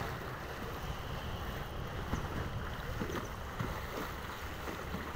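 Wind buffeting the microphone and choppy lake water rushing past the hull of a moving boat, a steady rushing noise over a low rumble.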